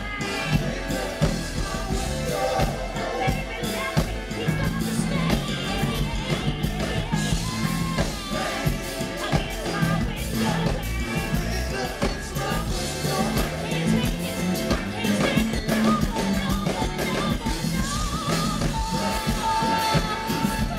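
A live funk band playing through a big open-air PA, with lead singing over bass, drums and keyboards.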